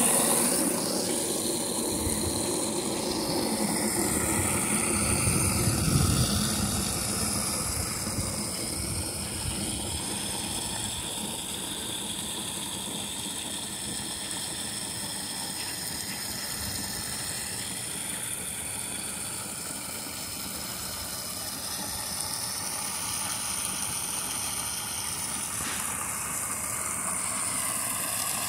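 Water gushing from an outdoor yard hydrant into a plastic kiddie pool, a continuous splashing rush. It is loudest in the first several seconds, then settles to a steadier, softer level.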